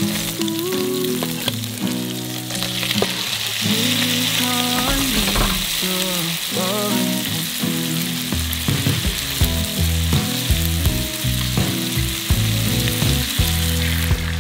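Bacon and shimeji mushrooms sizzling in olive oil in a non-stick frying pan, stirred with metal tongs. The sizzling grows louder a few seconds in. Background music with a bass line plays throughout.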